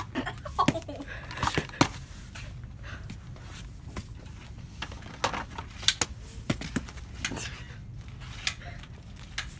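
Scattered sharp clicks and knocks with a few brief snatches of voice, over a low steady hum.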